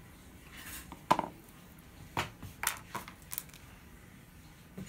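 Multimeter test probes and thin wire leads being handled and set down on a wooden tabletop: about four light clicks and clatters, with a soft rustle just before them.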